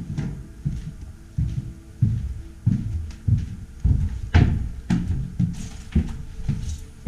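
Footsteps of people walking down a staircase: a steady series of heavy thuds, about one every half second or so, with scuffing of shoes on the steps.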